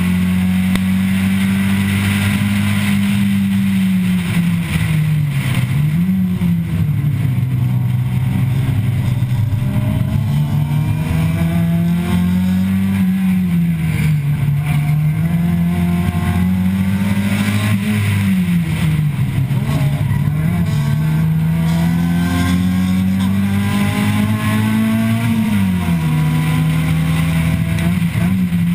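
Nissan Sentra B15's SR20 four-cylinder engine running hard on track, heard from on board: the engine note holds high, drops and climbs back several times as the car lifts, shifts and accelerates through corners, with a steady hiss of wind and road noise over it.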